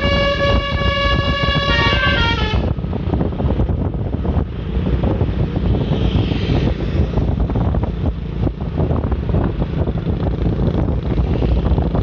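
Manual multi-tone telolet bus horn of the Basuri type playing a short tune of stepped notes and chords, cutting off about two and a half seconds in. After that there is only a steady low rumble of the bus and road.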